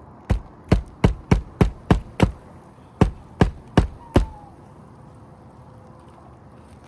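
Magnetic roofing hatchet driving roofing nails through an asphalt shingle to secure it: seven sharp blows at about three a second, a short pause, then four more.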